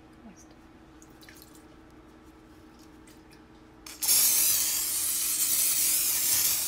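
PAM canola-oil aerosol cooking spray hissing into a metal bundt pan in one steady spray about three seconds long, starting about four seconds in, after a quiet stretch.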